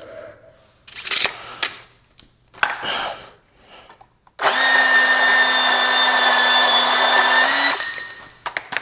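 A few knocks and clatters, then a handheld power tool runs steadily at one pitch for about three seconds and stops, a high whine trailing on for a moment after.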